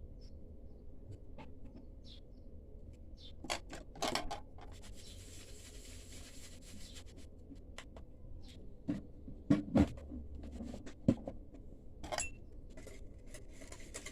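Kitchen handling sounds: scattered clicks and knocks of utensils against a mixing bowl, the loudest few coming together about two thirds of the way through, with a soft rustle in between.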